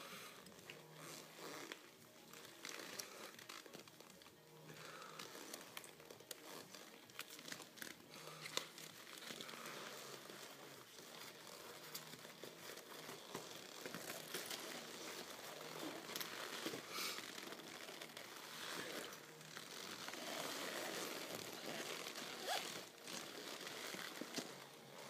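Leather creaking and rustling as gloved hands handle a tall lace-up leather boot and a leather jacket close to the microphone, with scattered small clicks.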